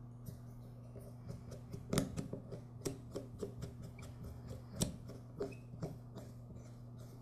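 Light clicks and taps of small metal lawn mower carburetor parts being handled and fitted by hand during reassembly, with two louder knocks, about two seconds in and near five seconds. A steady low hum runs underneath.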